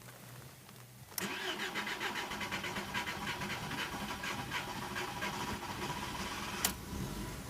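Starter cranking the VW Golf Mk4's 1.6 AKL four-cylinder petrol engine in a long, pulsing crank of about five and a half seconds before it catches: a hard start on a mild 12 °C day. A sharp click comes near the end, and a lower, steady running sound follows.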